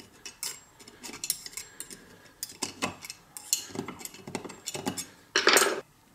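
A small screwdriver's tip scraping and clicking against a metal mesh filter ring as the ring is pressed down around the tube into a bottle jack's base, with light metallic clinks. Near the end there is a louder clatter as the screwdriver is put down on the wooden bench.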